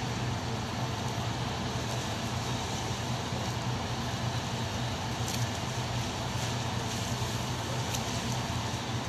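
Steady low drone of a large passenger ship's engines as the ship gets under way from the quay, over a broad wash of harbour noise.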